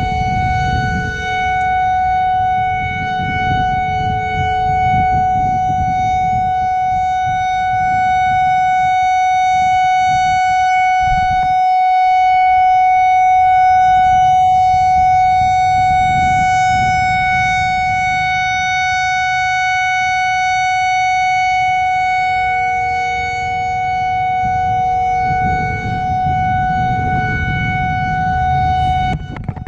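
Whelen WPS 4004 electronic outdoor warning siren sounding its Alert signal: one loud, steady tone held without any change in pitch. The tone swells and eases slowly as the rotating speaker array turns.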